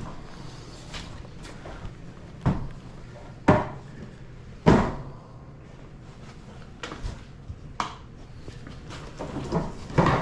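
A series of sharp knocks and thumps a second or so apart, the three loudest in the first five seconds and lighter ones later, over a low steady hum.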